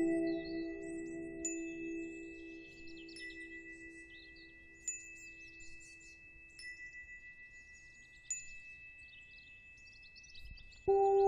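Quiet passage of electronic background music: two steady high tones with scattered twinkling, chime-like pings. The lower notes fade away over the first few seconds, and louder full music cuts back in near the end.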